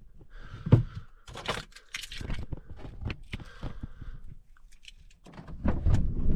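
A run of clicks, knocks and rustling, like things being handled, then a loud, steady low rumble starts about five seconds in.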